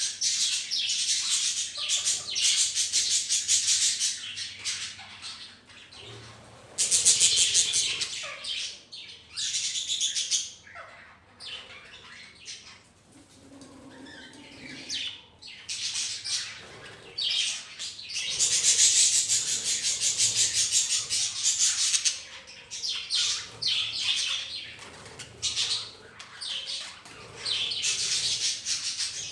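A flock of pet budgerigars chattering and chirping in a fast, continuous high-pitched warble. The chatter comes in loud stretches, with a quieter lull about halfway through.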